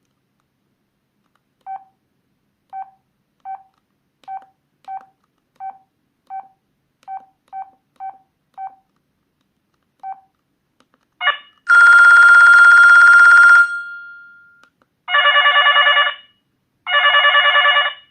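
Sanyo MVP cell phone: a string of short, single-pitched key beeps at uneven intervals as its buttons are pressed, then ringtone previews from its speaker. The loudest is a ring of about two seconds, starting about twelve seconds in, that dies away; two shorter ringing bursts follow.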